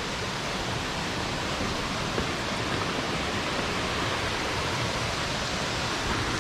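Steady rush of river water flowing, an even hiss with no breaks.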